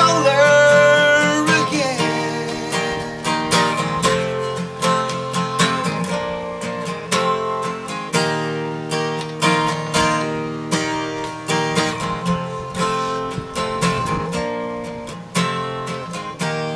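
Solo acoustic guitar strummed in a steady rhythm, playing an instrumental passage of a country song. A held sung note trails off in the first two seconds.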